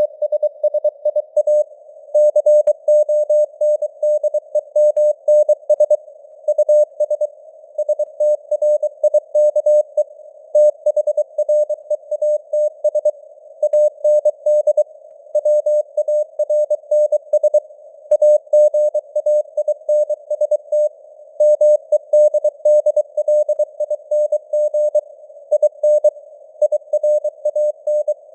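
Morse code (CW) sent at 23 words per minute as a single mid-pitched tone keyed on and off in dots and dashes. It sits over a narrow band of simulated radio static, with the signal strength varying somewhat (simulated fading, QSB).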